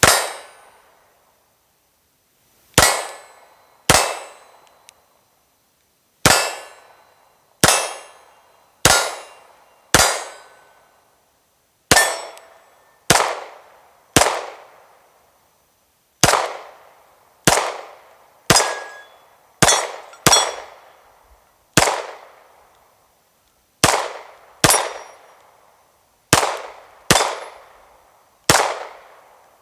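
FN 509 Tactical 9mm pistol firing steady slow fire: about twenty sharp shots roughly a second apart, each trailing off in a short ringing decay.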